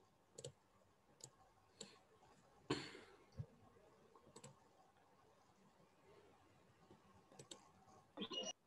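Near-silent room tone broken by a few faint, scattered clicks of a computer mouse, with a slightly louder short click-like sound near the end.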